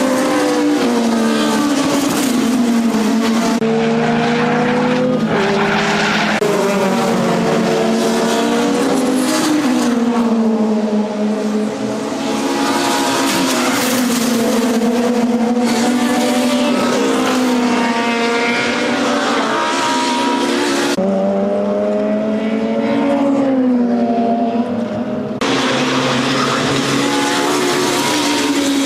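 Touring car race engines at full racing speed, their pitch climbing through the gears and dropping under braking as the cars pass. The sound changes abruptly several times from one shot to the next.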